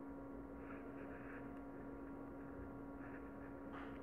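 Steady low electrical hum with faint, soft rustles of hand beadwork: needle and nylon thread being drawn through pearl beads.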